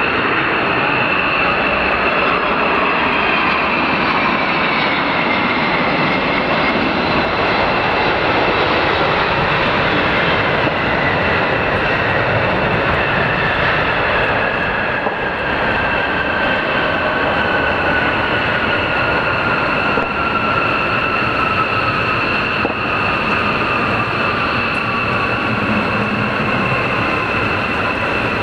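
Boeing 767-300 airliner's jet engines running loud during a landing: a heavy steady rush with a steady high whine and a second whine that slowly falls in pitch.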